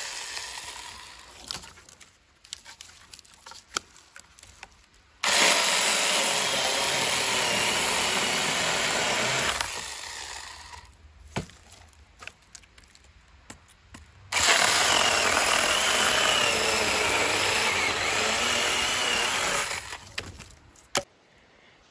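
Saker mini battery electric chainsaw cutting through birch logs in two bursts of about five seconds each, each starting abruptly and running steadily before tailing off. Between the cuts, small knocks and clicks as the logs are handled.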